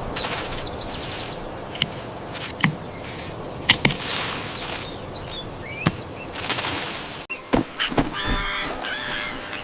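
Harsh bird calls and squawks over a steady rustling background, with several sharp clicks or knocks scattered through, and a cluster of squawks near the end.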